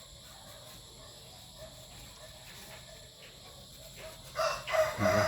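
A rooster crowing, one long drawn-out call starting about four seconds in, over faint background noise.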